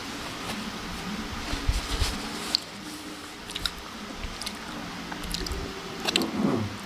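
Close-miked chewing and biting of soft, saucy food, with wet squishing mouth sounds and scattered sharp clicks and smacks. A brief low falling sound comes near the end.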